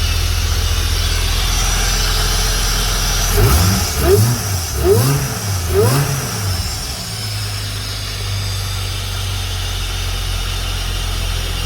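Turbocharged Holden Commodore V6 idling, revved three times in quick succession starting about three and a half seconds in, each rev rising and falling, then settling back to a steady idle.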